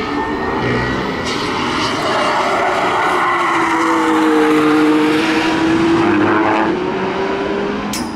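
Mercedes-AMG One prototype's turbocharged 1.6-litre V6 hybrid engine driving past at speed. Its high, steady engine note swells to loudest about four to five seconds in as the car goes by, then carries on as it pulls away.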